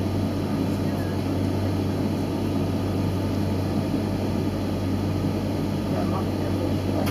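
Steady low hum and rumble of a passenger train running along the track, heard from inside the carriage.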